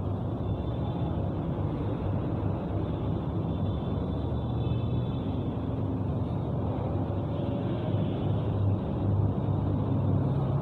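Steady low rumble and hiss of background room noise with a faint hum, unchanging throughout.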